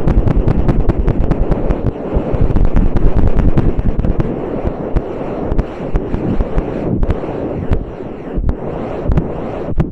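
ASMR ear-cleaning tools scraping and rubbing right on the microphone: a loud, dense crackle of rapid strokes, at first in a quick even rhythm of about five a second, then looser and softer.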